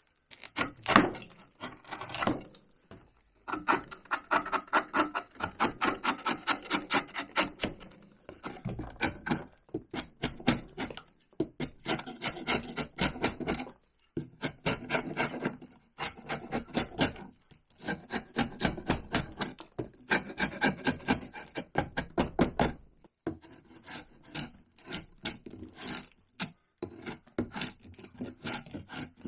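Hand tool scraping along cottonwood bark in quick repeated strokes, several a second, in runs broken by short pauses.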